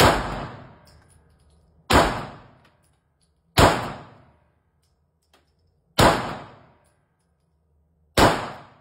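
Five pistol shots from a semi-automatic handgun with a red-dot sight, fired one at a time about two seconds apart. Each shot rings off briefly in an enclosed indoor range.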